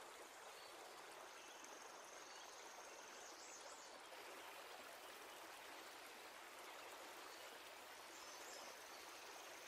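Faint, steady rush of a fast-flowing river, a soft even hiss with no low rumble.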